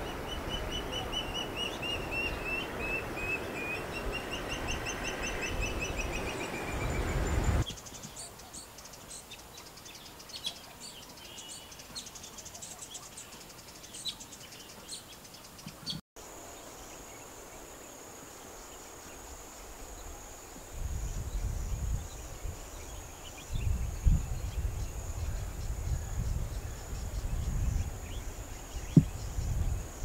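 Outdoor bird calls over wind noise. First a bird gives a series of descending trilled calls over a low rumble. About eight seconds in, this changes to scattered high chirps and clicks. In the second half a steady high-pitched hiss carries on, with bouts of low wind rumble.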